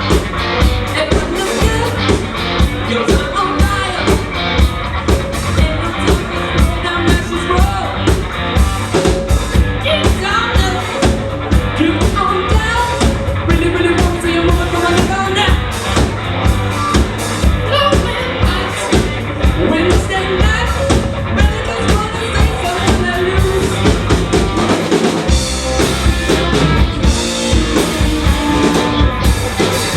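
Rock band playing live: a drum kit keeps a steady, driving beat under bass, guitar and singing. The kick and bass drop away for a moment about 25 seconds in, then come back.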